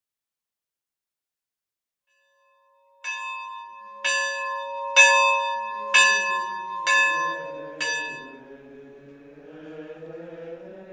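Silence for about three seconds, then a bell struck six times, about once a second, each stroke ringing on. As the last stroke fades, faint chanting voices begin.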